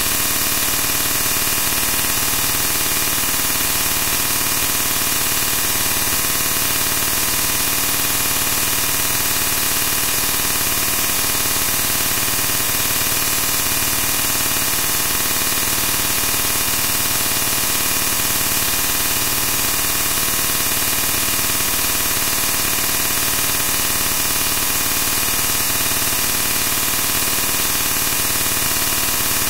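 Loud, steady static hiss that never changes in level.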